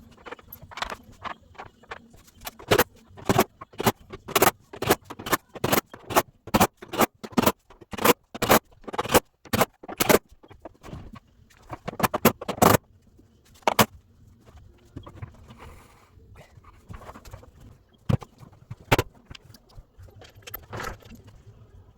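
Hand tools working on a washer drum's shaft bolt: a quick run of sharp metallic clicks and knocks, about two to three a second, then slowing to scattered single knocks.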